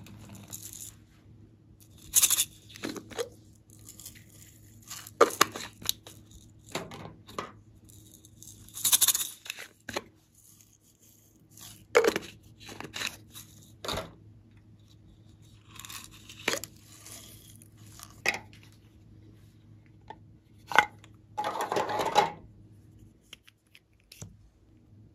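Hands handling small plastic containers and a lip gloss tube: irregular sharp clicks, taps and crinkles, with a longer crackling rustle near the end.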